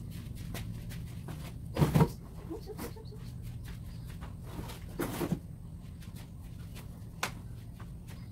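Cardboard panels knocking and scraping against a plastic ride-on toy vehicle as the cardboard shell is fitted onto it: two loud knocks about 2 and 5 seconds in and a sharp click near the end, over a steady low hum.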